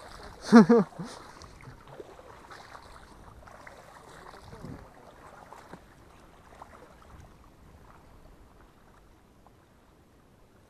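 A short shout from a man's voice about half a second in, then faint sloshing and splashing of water as a person wades through shallow lake water, growing fainter toward the end.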